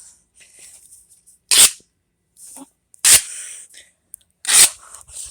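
Three loud, sharp impacts about a second and a half apart.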